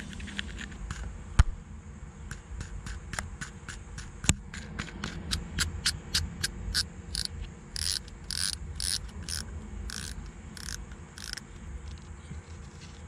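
Lew's Custom Pro baitcasting reel's star drag clicking as it is turned down on the handle shaft: a run of sharp, evenly spaced clicks, a few louder ones near the end, with a sharp knock about a second in.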